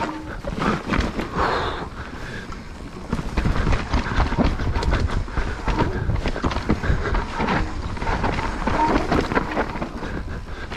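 Mountain bike riding down a dirt trail: tyres rumbling over the ground, with constant rattling and quick knocks from the bike.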